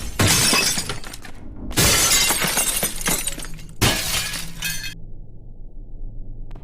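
Three loud crashing, shattering noises one after another, each a second or two long, then a low steady hum.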